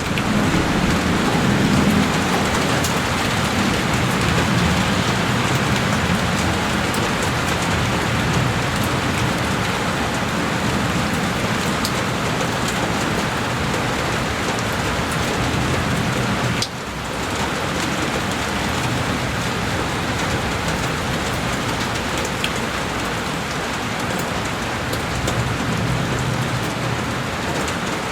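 Heavy rain falling steadily on a window: a dense, even hiss with scattered sharp drop ticks and a fuller low rumble underneath, dipping briefly about two-thirds of the way through.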